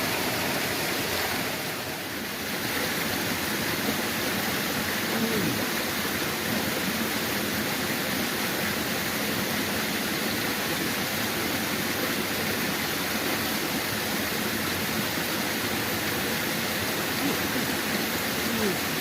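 Steady rush of flowing water, an even hiss with a brief dip in level about two seconds in.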